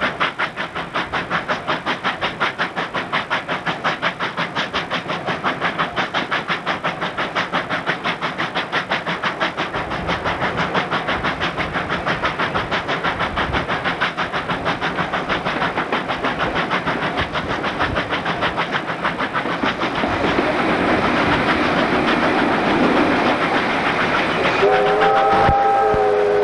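Victorian Railways R class 4-6-4 steam locomotive R 707 working at speed, its exhaust beating rapidly and evenly; after about twenty seconds the beats blend into a steadier rush. Near the end its steam whistle sounds several tones together and holds.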